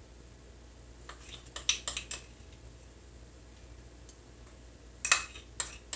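A small spoon clinking and tapping lightly against a small bowl and a plate while spooning a garlic and oil mixture onto tomato halves: a few light taps about a second in, and a louder cluster of clinks near the end.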